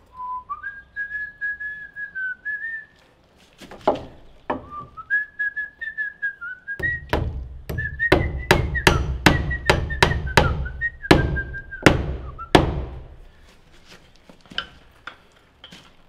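A man whistling a wandering tune while he works, with a hammer striking wood: two single blows a few seconds in, then a quick run of blows, about three a second, through the middle of the stretch.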